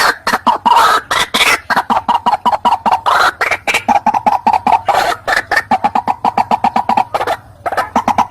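White-breasted waterhen (ruak-ruak) calling in a fast run of short repeated notes, several a second, with a brief pause about seven seconds in before the calling picks up again.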